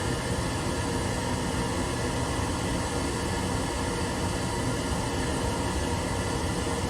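Steady background noise, a constant hiss with a low hum and faint steady tones, unchanging throughout.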